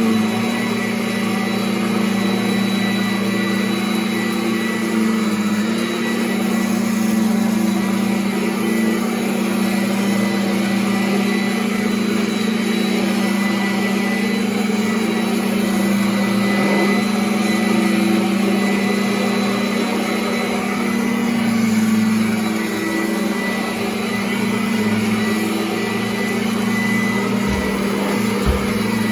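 Kirby 'Havalir' upright vacuum (an Avalir with Heritage II-style parts) running steadily over carpet: a constant motor hum with a thin high whine.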